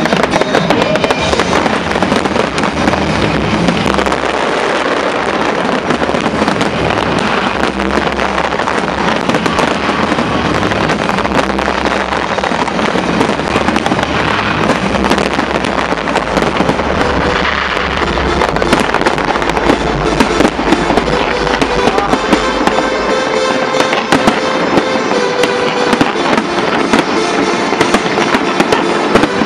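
A large fireworks display: a dense, continuous barrage of bangs and crackling, with a low rumble that stops about three-quarters of the way through. Music plays underneath.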